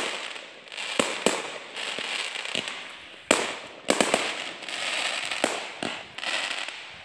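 Fireworks going off: irregular sharp bangs, about eight in a few seconds, with crackling and hissing between them.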